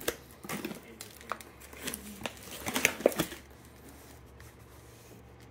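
Plastic packaging crinkling and rustling as vacuum-sealed steaks and their plastic liners are handled in a box, with a few sharp clicks; the loudest comes near three seconds and the handling stops a little past halfway.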